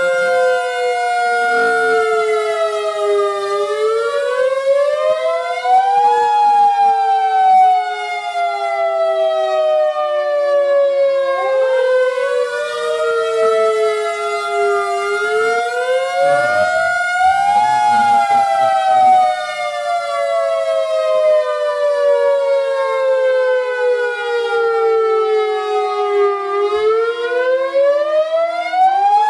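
Several outdoor warning sirens, a Thunderbolt 1000B, a Federal Signal 2001-130, a Modulator 6048 and a Model 2T, sounding a tornado-warning wail together. Their pitches rise over a couple of seconds and fall slowly over several more, each on its own cycle, so the tones cross and overlap. The 2001-130 is sounding without rotating, its rotator jammed against a fence.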